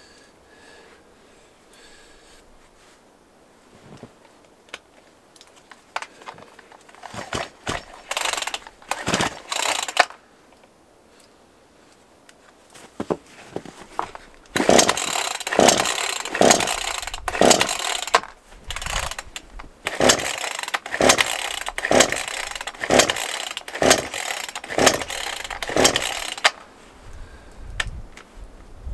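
Chainsaw being pull-started again and again: the recoil starter is yanked in a few strokes, then in a quick run of about a dozen pulls roughly one a second, with no steady running in between. The saw is failing to start.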